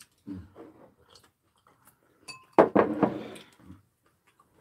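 Mealtime sounds at a table: soft chewing noises, then a sharp clink of tableware with a brief ring a little over two seconds in, followed at once by a louder noisy rush lasting about a second.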